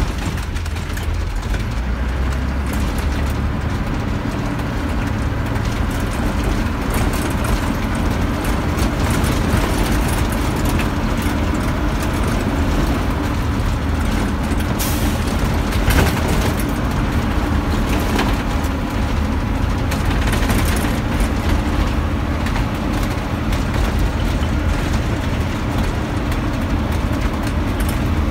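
Engine and road noise inside a vehicle's cab driving on an unpaved dirt road, with a few knocks and rattles over bumps in the middle stretch.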